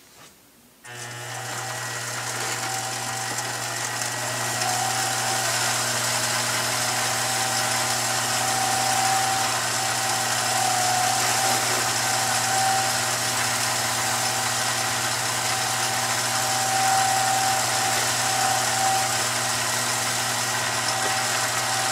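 Billiard cue lathe switching on about a second in and running steadily with a low hum while a paper towel wipes the spinning cue shaft. An on-and-off higher whine rises over the hum from about four seconds in.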